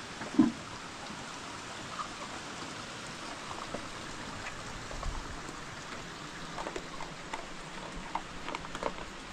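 Steady rain falling, with scattered drops tapping close by. A brief, much louder sound comes about half a second in.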